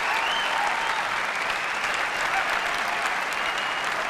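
A large auditorium audience applauding steadily, with a few voices cheering over the clapping.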